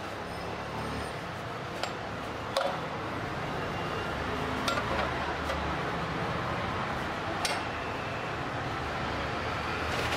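Steady background noise of a busy food stall, with a few sharp clinks of dishes and utensils.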